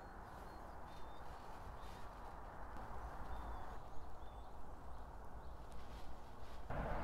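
Outdoor spring ambience: steady low wind noise with a few faint, short bird chirps. About a second before the end the noise suddenly gets louder.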